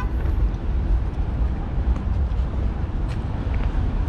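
Steady road traffic noise from passing cars, a continuous low rumble with no single event standing out.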